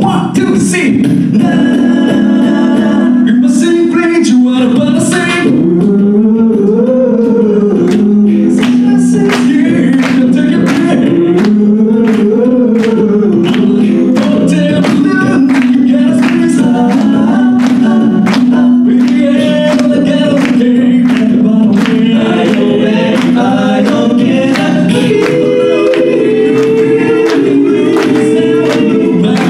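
A cappella vocal group singing an up-tempo song: several voices hold chords under a lead line, a vocal bass sings the low part, and a vocal percussionist beatboxes a steady beat.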